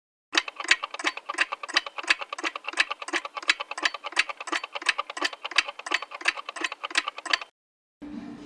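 Steady mechanical ticking added as a sound effect, about four ticks a second. It starts just after the beginning and cuts off abruptly about a second before the end.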